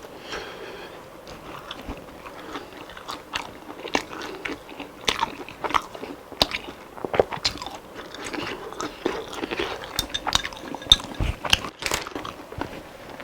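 Crispy fried food bitten and chewed close to the microphone: irregular sharp crunches, several a second at times, over steady chewing.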